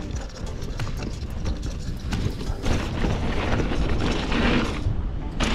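Haro Shift R7 full-suspension mountain bike rolling fast down a dirt trail: irregular clicks and rattles from the bike over bumps, then a louder, steady rush of tyre noise on the dirt from about halfway.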